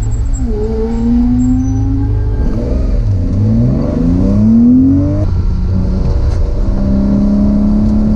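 Porsche 911 flat-six engine heard from inside the cabin, accelerating hard: its pitch climbs, drops at a gear change, climbs again, then settles to a steady pitch near the end.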